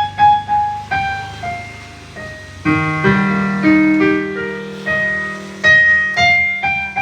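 Casio CT-X870IN portable electronic keyboard being played: a melody of single notes, with chords and a held bass note joining in about two and a half seconds in.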